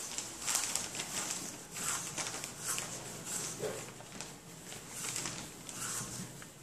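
Corded electric hair clippers buzzing as they are pushed through long hair, with irregular rustling strokes a couple of times a second as the head is shaved.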